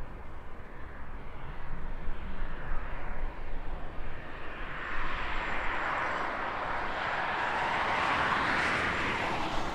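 A jet airliner's engines as it passes, the roar building from about halfway through and loudest near the end before falling away quickly. A low, uneven rumble runs underneath.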